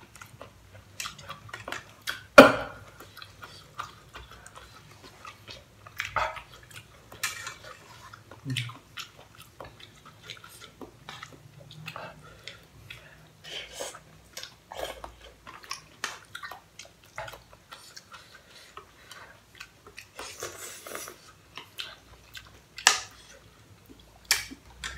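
Chopsticks and a metal fork clinking and scraping against a cooking pot as pasta is picked out of it, in irregular clicks with one sharper knock about two seconds in. Chewing sounds between the clinks.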